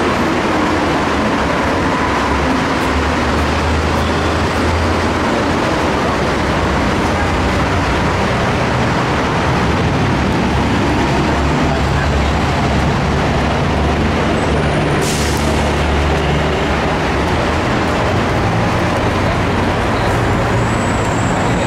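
Steady loud din of a Mexico City Metro station, with the low rumble of trains and passengers moving about, and a short hiss about fifteen seconds in.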